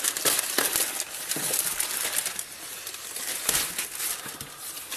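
A thin black plastic mailer bag crinkling and rustling with sharp crackles as hands tear it open and pull it off a boxed parcel. There is a louder burst of crackling about three and a half seconds in.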